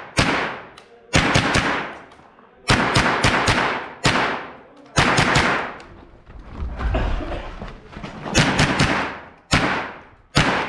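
Umarex Walther H&K MP5 rimfire rifle in .22 LR fired semi-automatically in quick strings of several sharp shots, each with a short echo, with brief pauses between strings.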